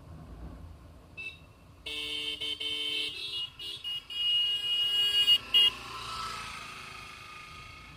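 A vehicle horn honking in several short and longer blasts from about two seconds in until just before six seconds, over the low rumble of a motorcycle on the move. A rushing noise swells and fades near the end.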